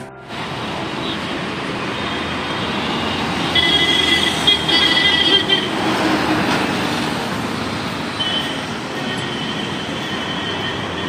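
Heavy road traffic with lorries and cars passing close by, loudest a few seconds in. A long, steady high-pitched horn sounds twice, once for about two seconds and again for the last few seconds.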